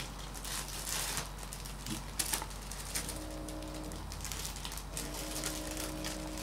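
Shredded potatoes frying in a pan under slices of melting cheese, sizzling with irregular sharp crackles and pops. A low pitched tone comes and goes twice in the background.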